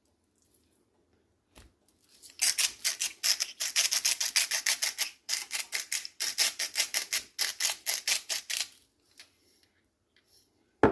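Salt grinder being twisted over steak, three runs of quick rasping grinding strokes with short pauses between them. A sharp knock right at the end.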